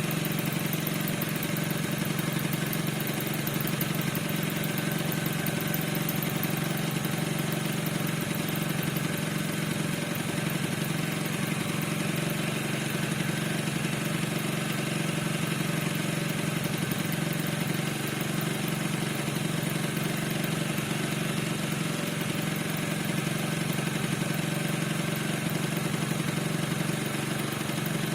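Piaggio NRG 50 scooter's two-stroke engine idling steadily, with the squeak whose cause the owner cannot find.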